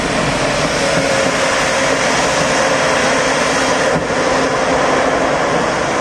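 Test rocket's motor firing on the launch pad, a loud, steady rushing roar with a faint hum beneath it and a brief dip about four seconds in. The rocket is not lifting off: a failed launch attempt.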